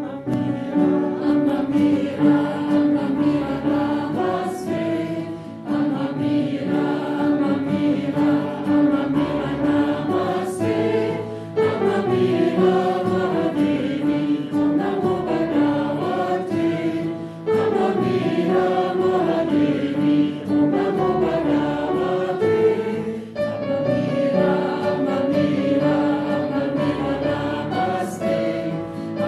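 A choir of voices singing a slow, melodic song together.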